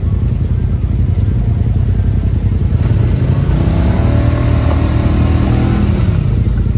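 ATV engine running loud under load in deep mud, revving up about three seconds in, holding high, then dropping back near the end, as the quad strains to pull out of the rut.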